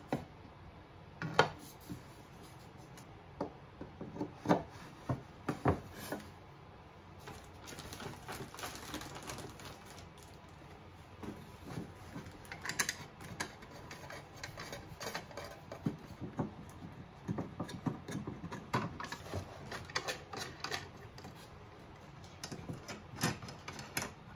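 Wooden rails and black boards of a hina doll display stand being handled and fitted together: irregular light knocks and clicks of wood against wood and the tabletop.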